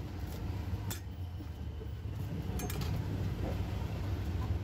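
A few sharp clicks of a knife striking a chopping board, one about a second in and a close pair past the middle, over a steady low background rumble.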